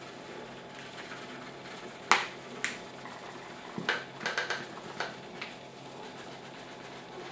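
Flour being poured from a paper bag into a bread maker's metal pan: a soft steady hiss broken by sharp taps and crinkles as the bag knocks against the pan. The loudest tap comes about two seconds in, and a quick cluster follows around four seconds.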